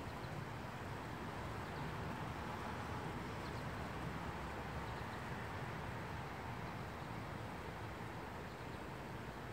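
Steady outdoor background noise with a low rumble, and a few faint, short high chirps.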